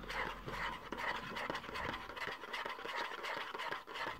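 A metal fork stirring hot water into instant mashed potato powder in a plastic pot: a weird bubbly noise with quick, dense ticks and scrapes of the fork as the powder reconstitutes into mash.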